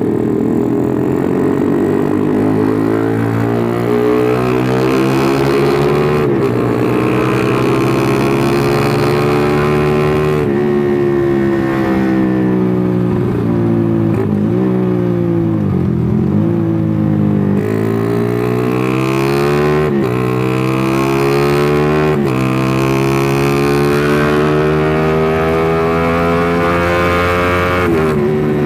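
Motorcycle engine accelerating through the gears while riding, its pitch climbing in each gear and dropping sharply at each of several shifts, with one brief throttle-off dip and pick-up about halfway through. The engine pulls cleanly at high revs, which the rider credits to its newly sorted carburettor setting.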